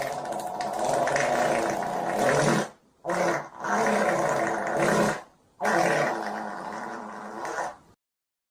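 Stomach growling: three long, pitched growls, each two to three seconds, with short gaps between.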